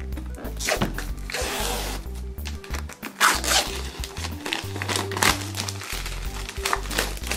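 Clear plastic wrap crinkling and tearing in several short spells as it is peeled off a boxed toy set, over background music with a steady low bass line.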